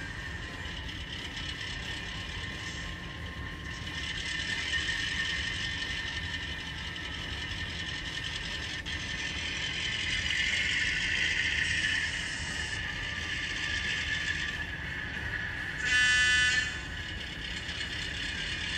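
Digital sound decoder in an HO-scale Atlas GP9 model locomotive playing EMD diesel engine sound through its small speaker as the model moves, the engine note swelling at times. Near the end comes one short blast of its single-chime horn, the loudest sound here.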